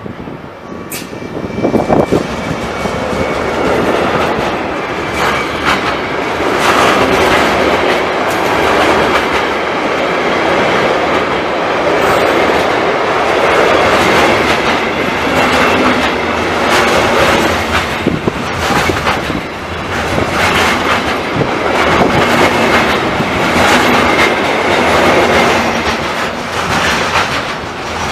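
A train passing close by, its wheels clacking over the rail joints. The noise builds over the first few seconds, then runs on at a steady level.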